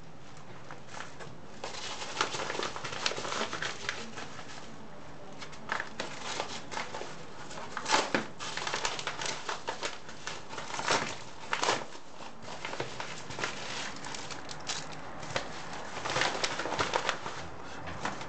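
Thin plastic packaging, cellophane wrap and a zip-lock bag, crinkling and rustling as it is handled, with irregular sharp crackles.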